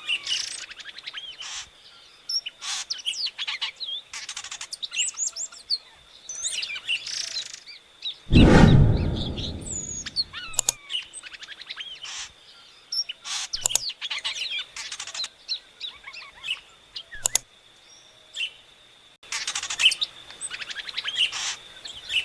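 Epaulet oriole (inhapim) singing: repeated bursts of varied whistles, glides and rapid chattering notes, separated by short pauses, over a faint steady high hum. About eight seconds in, a loud low rumbling noise lasts about two seconds.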